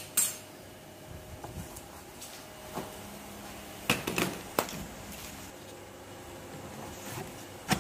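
Handling noise: a few scattered knocks and taps as a pre-insulated panel duct elbow is shifted and turned on a workbench, the loudest cluster about four seconds in.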